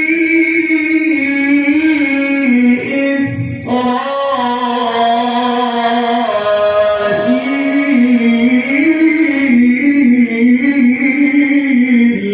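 Male reciter's voice chanting the Qur'an in melodic tilawah style, drawing out a long, ornamented phrase on held notes that waver and turn, with a short break about three and a half seconds in.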